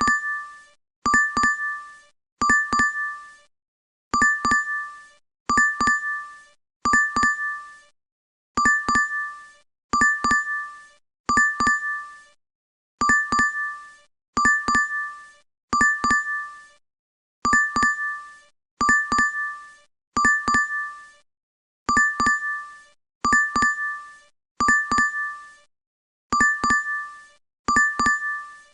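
DoorDash app notification chime, a short bright double ding, repeating evenly about once every second and a half.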